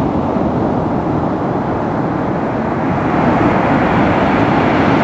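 Steady rush of surf breaking on the beach, with wind noise on the microphone, growing a little louder about three seconds in.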